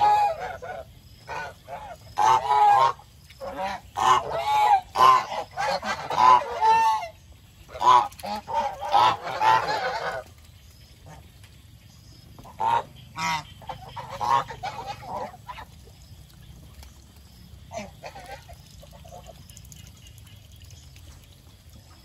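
Domestic geese honking, many calls overlapping for about the first ten seconds, then fewer, scattered honks that die away toward the end.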